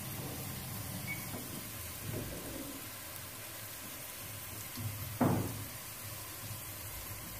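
Sliced onions browning in oil in a pot, a quiet steady sizzle. A single knock about five seconds in.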